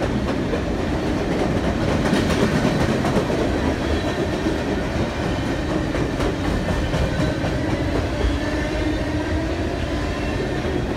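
Freight train of covered hopper cars rolling past close by: a steady rumble with wheels clacking over the rail joints.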